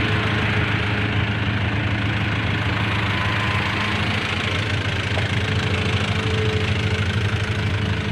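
A heavy engine running steadily at an even, low pitch.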